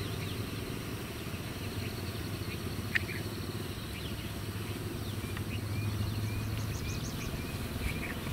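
Birds chirping and calling in short repeated notes over a steady low hum, with a single sharp click about three seconds in.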